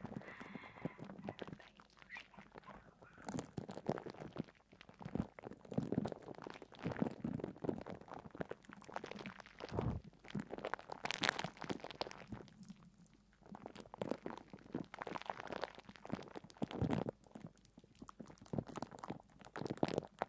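Irregular soft crunching and crackling in uneven clusters, with quieter gaps between them.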